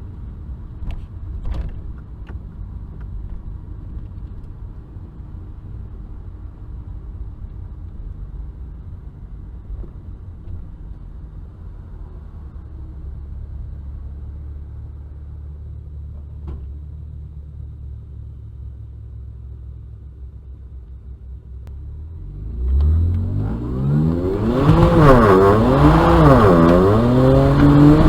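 BMW 335i's twin-turbo N54 straight-six running at a low, steady rumble for about twenty seconds, then accelerating hard about 22 seconds in. For the last few seconds it is loud, its pitch climbing and dropping several times through the gears.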